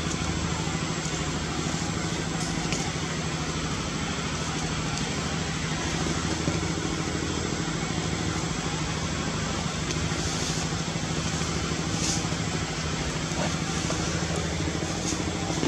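An engine running steadily: a constant low hum under an even hiss.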